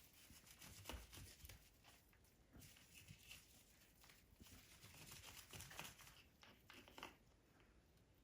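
Near silence: room tone with faint, scattered clicks and rustles.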